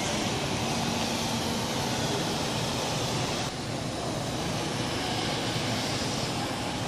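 Steady rushing hum of a large airport terminal's ambience, with a faint low machine hum that comes and goes; the upper part of the noise dips briefly about halfway through.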